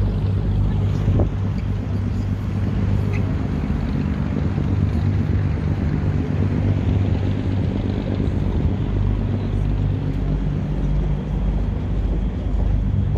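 A steady, low engine drone that holds an even pitch throughout, over a general haze of noise.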